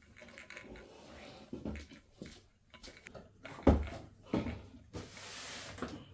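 Knocks and rustling from someone moving about and handling furniture and fabric. A sharp knock past the middle is the loudest, another follows half a second later, and a short rustling hiss comes about a second before the end.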